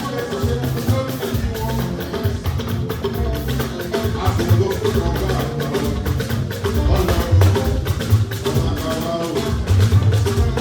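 Band music with drums and hand percussion keeping a steady beat.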